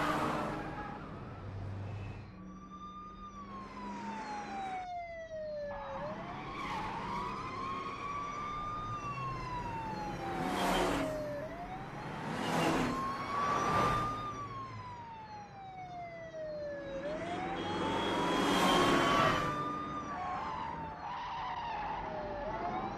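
Police car siren wailing, its pitch rising and falling slowly about once every five and a half seconds, over running car engines. Several short, loud bursts of noise come and go through it.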